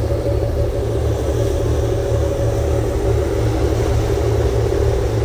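Boat engine running with a steady low drone and a constant hum, with a hiss of water or wind over it.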